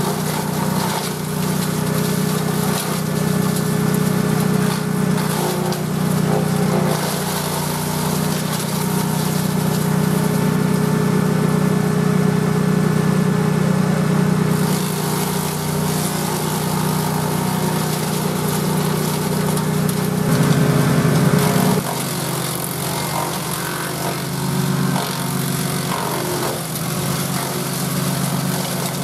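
Grillo G131's 18 hp Vanguard V-twin engine running steadily at working speed, driving a Caravaggi BIO 150 chipper shredder; the machine's tone shifts about three quarters of the way through.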